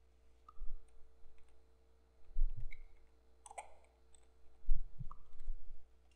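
Computer keyboard keys clicking as a short name is typed, in a few uneven bursts with dull low thumps, over a faint steady hum.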